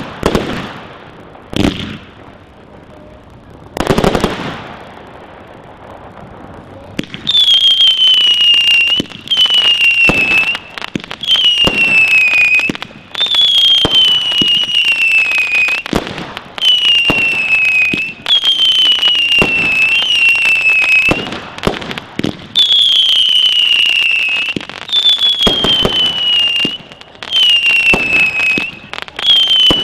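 Firework barrage firing one shot after another, each climbing with a whistle that falls in pitch, about one every one and a half to two seconds. Sharp bangs of bursting shells come over the whistles, and the loudest bang lands about four seconds in, before the whistling starts.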